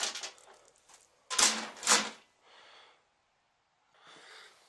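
An old motorcycle cam chain rattling as it is handled over a steel workbench, with two short metallic clatters about half a second apart around a second and a half in.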